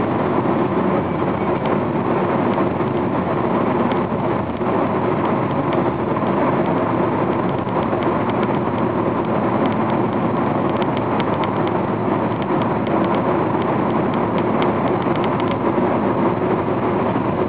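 Steady road and engine noise heard from inside a car driving through a road tunnel.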